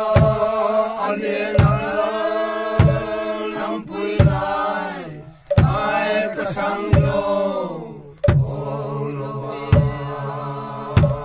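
A group of voices chanting a song in slow unison on long held notes. A small hand-held barrel drum is struck once about every second and a half.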